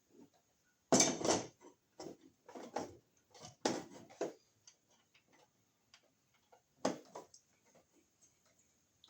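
Irregular light knocks, clicks and clinks of small hand tools and metal electrical hardware being handled, with the strongest knocks about a second in, near four seconds and near seven seconds.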